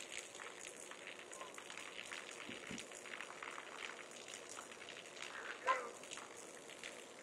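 Faint crackling and ticking of a hollowed-out tree stump burning after a thermite charge, with a short wavering high-pitched sound a little before six seconds in.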